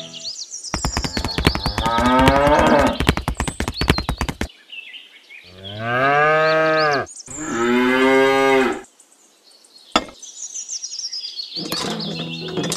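Cattle mooing three times, a sound effect for the toy cows: first a long, rough, rasping moo, then two shorter clear moos about two seconds apart. A single click follows, and near the end a rapid mechanical clicking starts as the toy hand pump's handle is worked.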